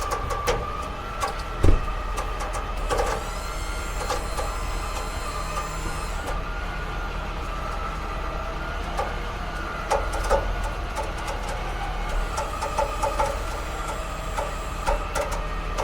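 Truck running down the road, heard from inside the cab: a steady low engine drone with scattered clicks and rattles, and a brief high whine a few seconds in.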